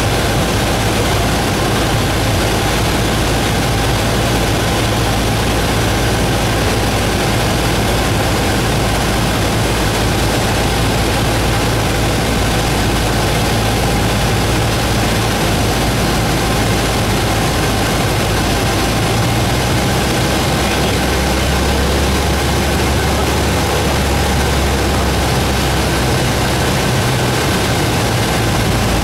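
Cabin noise of a single-engine propeller plane in flight: the piston engine and propeller make a loud, steady drone mixed with air-rush hiss, heard from inside the cockpit. The low hum shifts slightly in pitch for several seconds near the end.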